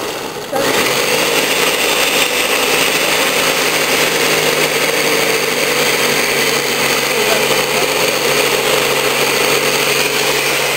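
Ninja Kitchen System 1200 blender running steadily, churning frozen fruit into a thick purée; its motor noise dips briefly and comes back at full strength about half a second in.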